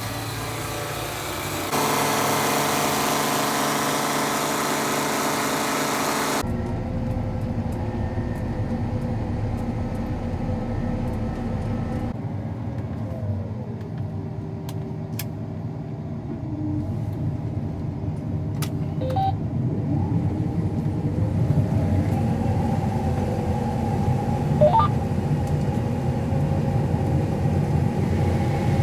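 Combine harvester's engine running steadily, the sound changing abruptly about 2, 6 and 12 seconds in, with some rises and falls in pitch later on.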